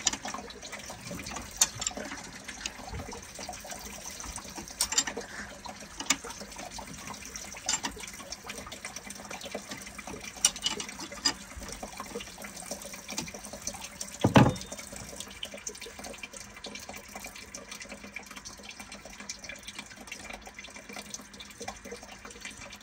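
Cooling water draining out of an opened drain port on a PCM marine engine, a steady trickle, with scattered small metal clicks from the wrench and plug and one heavier knock about two-thirds of the way through.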